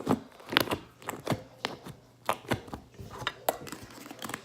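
Plastic slime containers being handled: a lid snapped shut and tubs set down and picked up, giving a string of irregular sharp clicks and knocks.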